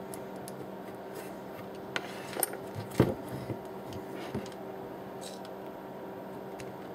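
Light clicks, knocks and scrapes of a soldering iron tip working on the solder joints of a circuit board while the board is handled, the loudest knock about three seconds in, over a faint steady hum.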